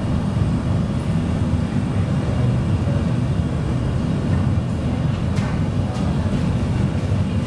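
Steady low roar of a glassblowing hot shop's gas-fired furnace and ventilation running, with a few faint clicks.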